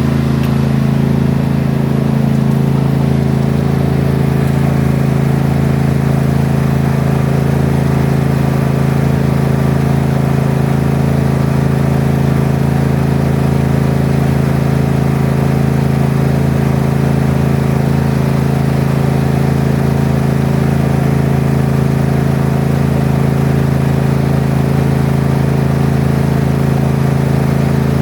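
Toro lawn mower engine running steadily at constant speed.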